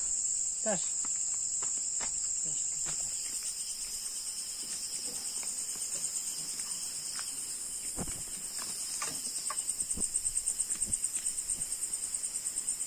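Night insects trilling steadily at a high pitch, the trill pulsing fast and evenly from a few seconds in. A few faint taps and knocks sound now and then.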